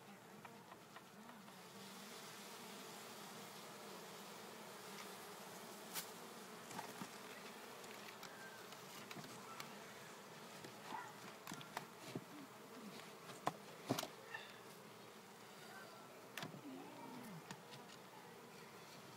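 Mass of honey bees on an opened brood comb frame, buzzing in a steady low hum. A few sharp knocks stand out, the loudest around the middle.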